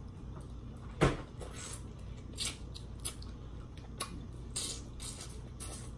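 Close-up eating sounds: a shrimp bitten and chewed, heard as scattered small clicks and smacks, with one sharper click about a second in.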